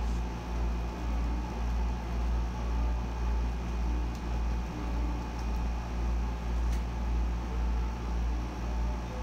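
Room air conditioner running: a steady low hum that swells and fades a little more than once a second, with a faint high whine.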